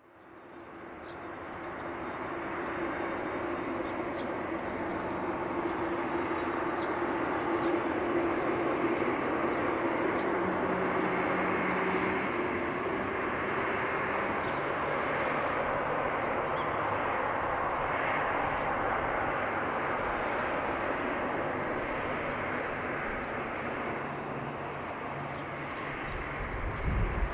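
Boeing 747-8F freighter's four GEnx turbofan engines running at high thrust for takeoff: a steady, broad jet noise with a faint steady hum in it, fading in at the start. A brief low rumble comes near the end.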